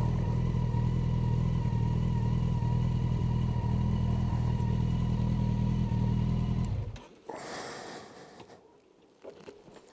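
Motorcycle engine running steadily at low revs, then switched off about seven seconds in, after which there is only a short faint rustle-like noise.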